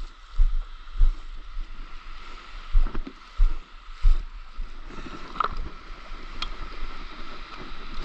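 A stand-up paddleboard's paddle stroking and splashing through shallow water as the board glides in toward the shore. Irregular low thumps sound over the water in the first half.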